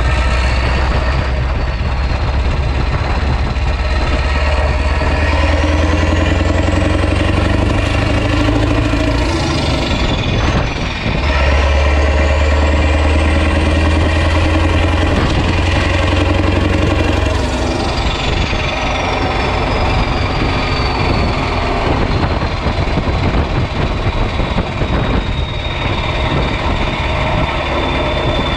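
Renault Magnum's 16.4-litre Mack E9 V8 diesel running loud through an open exhaust under acceleration, with a turbo whistle rising in pitch. About ten seconds in the whistle drops with a short dip in engine sound, as at a gear change, then climbs again and falls away from about two-thirds of the way through as the throttle eases.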